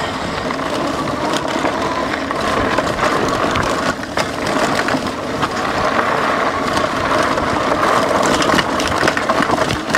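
Lectric XP 3.0 e-bike's rear hub motor whining steadily under pedal assist on a climb, with the fat tyres crunching over gravel and scattered clicks and rattles from the bike on rough ground.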